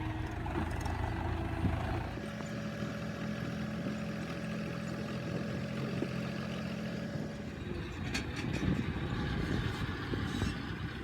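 Diesel tractor engine running under a backhoe at work, its note changing about two seconds in, with a few knocks of clatter near the end.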